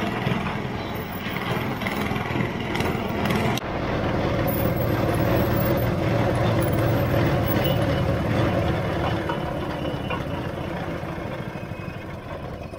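A motor vehicle engine running close by in street noise, loudest in the middle and fading toward the end.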